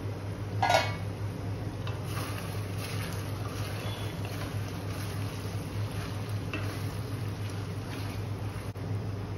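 Metal spatula stirring and scraping chicken curry in a stainless steel kadai, with one ringing clang of the spatula against the pan about a second in and lighter scrapes after. A steady low hum runs underneath.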